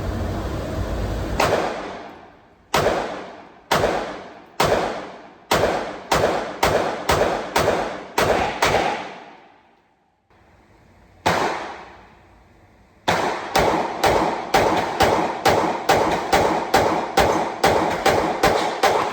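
G-Force Arms Exodus RPX9 9mm pistol, a Glock 19 clone, firing semi-automatic: about eleven shots at a quickening pace, one more after a pause, then a faster, even string of about sixteen shots, roughly three a second. Each shot is sharp and rings out briefly, close to thirty rounds in all as a new 30-round magazine is run through it.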